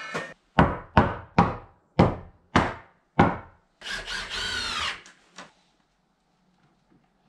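About seven sharp wooden knocks in a row, nearly two a second, from rough-cut siding boards being worked against the shed wall. They are followed by a short squeaking scrape of wood on wood and two faint knocks.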